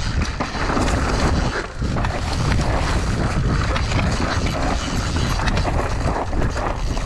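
Mountain bike ridden fast downhill over a dry dirt trail strewn with leaves, heard from a bike-mounted action camera: constant tyre and rolling noise with many short knocks and rattles over bumps, and wind buffeting the microphone. The noise eases briefly about two seconds in.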